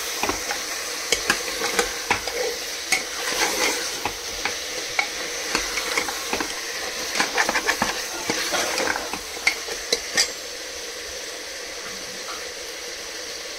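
Pieces of mutton sizzling in hot oil in a pot while a spoon stirs and scrapes them, with many quick clicks and scrapes against the pot. About ten seconds in the stirring stops and only a steady sizzle goes on. This is the bhuna stage, with the meat being fried until the oil separates.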